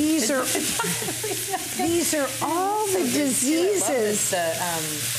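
Penne and vegetables sizzling in a hot cast-iron skillet while a wooden spatula stirs and tosses them, with many short squeaks rising and falling in pitch as the spatula scrapes through the pan.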